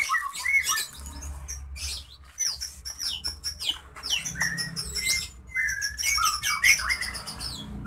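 Small songbirds chirping and singing: many short whistled notes that slide up and down, mixed with quick trills.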